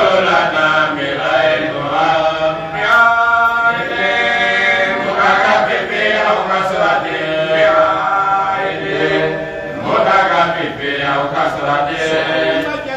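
A man chanting an Islamic religious recitation into a microphone: one voice in long, melodic, drawn-out phrases with held notes.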